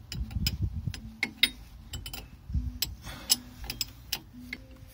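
Irregular metal clicks and clinks of a 3/4-inch combination wrench being fitted and turned on a cooler-line flare fitting of a marine transmission.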